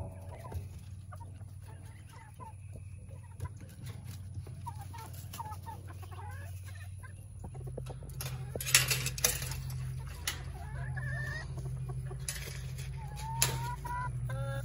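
Domestic hens clucking in short soft calls, with a few longer rising calls near the end. A steady low hum runs underneath, and a few brief loud knocks come about two-thirds of the way through.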